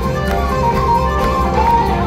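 A live band plays a fast traditional tune: an accordion carries a quick melody over bass guitar, electric guitar and a steady drum beat.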